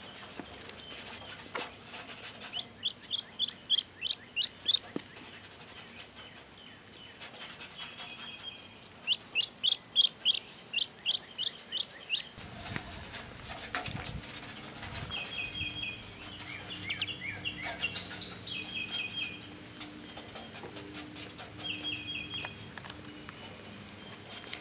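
Duckling peeping: runs of short, high peeps in quick succession, repeated several times, with quicker, shorter runs in the second half.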